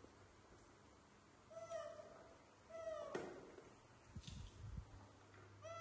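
Young macaque monkeys giving short, even-pitched squeaky calls, three times: about a second and a half in, about three seconds in, and again at the very end. A few soft low knocks fall between the calls.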